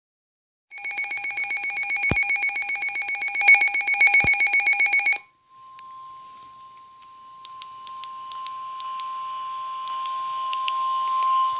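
A rapidly pulsing, multi-pitched electronic alert sounds for about four and a half seconds and stops. It is followed by a steady single-pitch tone near 1 kHz, the NOAA Weather Radio warning alarm tone, over faint radio hiss and crackle. This tone signals that a warning broadcast is about to follow.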